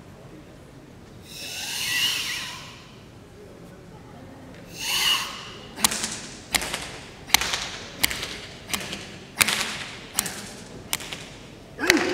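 Two long, forceful hissing breaths of Sanchin kata breathing, then a run of about nine sharp slaps of open hands on bare skin, a little under a second apart, as the tester strikes the performer's body during Sanchin shime.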